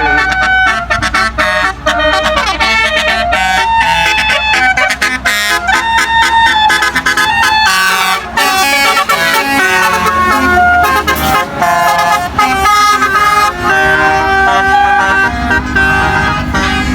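Bus telolet horns, multi-tone musical horns, playing quick runs of notes that change pitch in steps.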